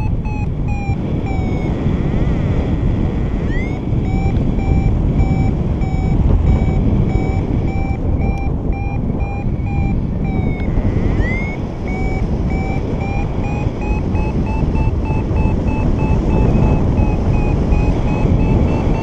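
A paragliding variometer beeping its climb tone in quick, even pulses, briefly pausing twice and rising in pitch over the last seconds as the lift strengthens, over steady wind rush on the microphone: the glider is climbing in a thermal.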